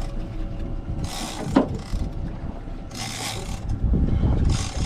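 Big-game fishing reel being cranked, winding line in three short spells while a marlin is played to the boat.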